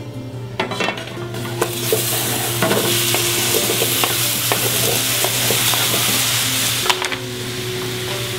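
Apple quarters dropped into hot caramel in a skillet set off a loud, steady sizzle about a second in, after a few knocks of the pieces going in. Near the end a sharp knock comes, and the sizzle settles to a quieter level.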